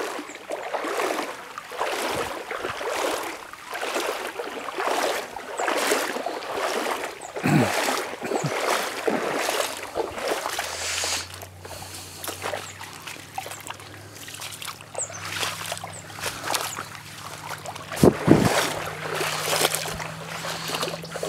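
Footsteps wading through a shallow creek, water splashing and sloshing with each step, about one step a second. A faint low steady hum starts about halfway through, and a louder thump comes near the end.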